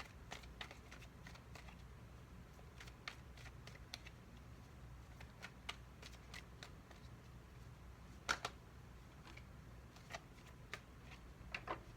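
A tarot deck being shuffled and handled: irregular, faint card snaps and clicks, with one louder snap about eight seconds in.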